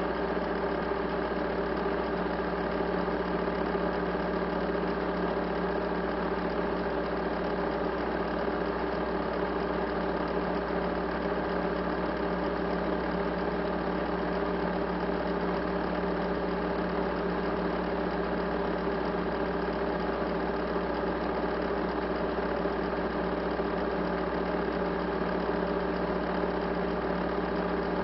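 A steady, unchanging mechanical hum with several steady tones.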